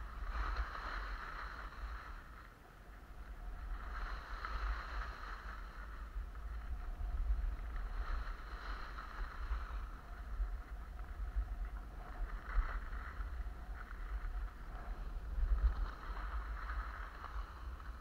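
Skis hissing and scraping over snow, swelling every few seconds as the skier turns, over a low wind rumble on the microphone.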